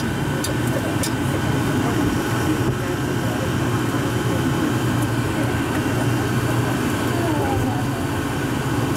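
Rubber-tyred automated people-mover train running through a tunnel, heard from inside the car: a steady low rumble with faint, even tones above it.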